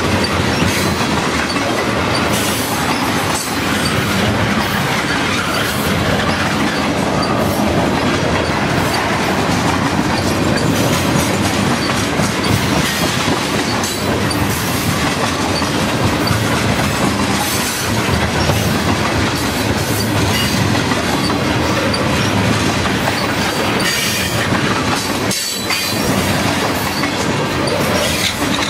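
Freight train tank cars rolling past close by: a steady rumble and rattle of steel wheels on the rails, with frequent clacks as the wheels pass over the track.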